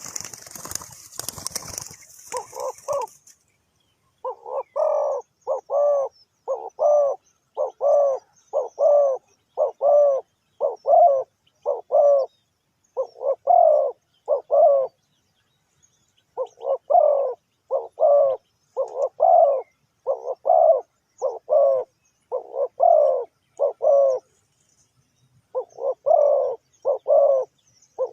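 Spotted dove cooing over and over, short low coo notes in quick groups with brief pauses between phrases. A noisy hiss fills the first two seconds.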